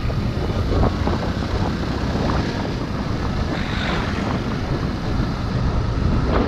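Wind buffeting the microphone of a helmet-mounted camera on a moving motorcycle, with the Yamaha R15's single-cylinder engine running underneath. It is a steady, heavy rumble, strongest in the low end.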